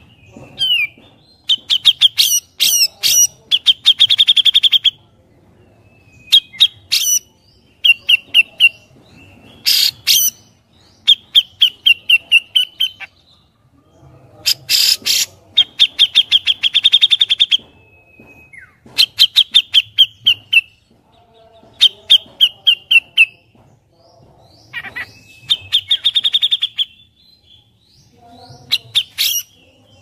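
Grey-cheeked bulbul (cucak jenggot) singing: loud phrases of rapid chattering, repeated notes, each a second or two long, with short pauses between them.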